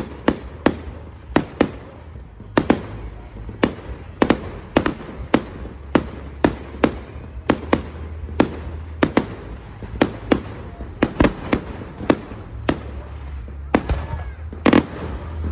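Aerial firework shells bursting in quick succession: a long run of sharp bangs, about two a second, over a steady low rumble.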